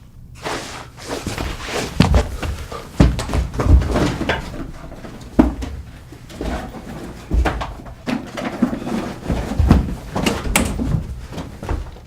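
A busy run of irregular knocks and bangs in a small room.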